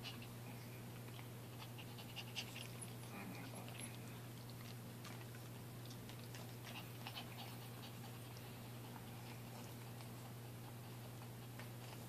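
Faint clicks, snuffles and rustling from two Maltese puppies mouthing at each other while wriggling on their backs on carpet, over a low steady hum.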